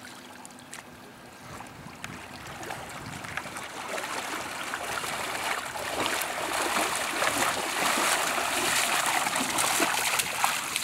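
Splashing and sloshing of three people wading through shallow lake water, growing louder as they near the shore and loudest in the last few seconds.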